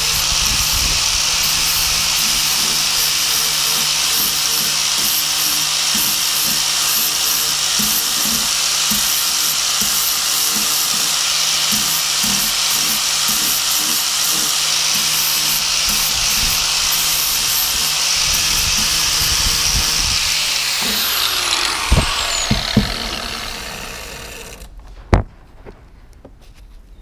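Angle grinder with a flap disc grinding a steel hedge trimmer blade flat, running steadily under load. About 20 seconds in it is switched off and winds down with a falling whine over a few seconds, followed by a single sharp knock.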